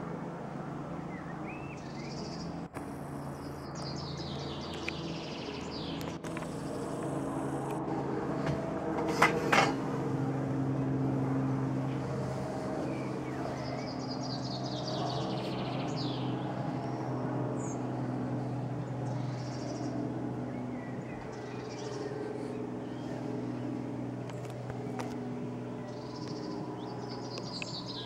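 Helicopter passing overhead: a steady drone that swells to its loudest around ten seconds in and then slowly fades. Songbirds chirp repeatedly over it, and a short sharp noise comes about nine seconds in.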